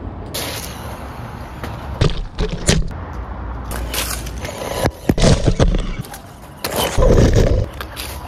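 Radio-controlled model van crashing and bouncing over a rough dirt track: a series of sharp knocks and clattering thuds, loudest in two clusters about five and seven seconds in.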